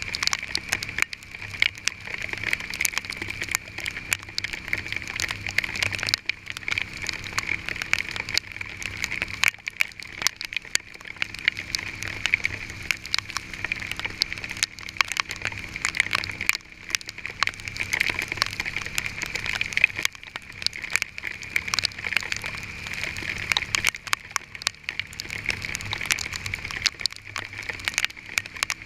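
Hail pelting a vehicle: a dense, continuous patter of hard pellet impacts.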